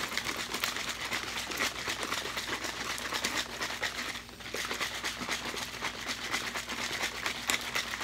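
Plastic bottle of water and powdered drink mix shaken hard by hand, the liquid sloshing and splashing inside in a fast, steady rhythm, with a brief pause about four seconds in. It is the powder being mixed into the water.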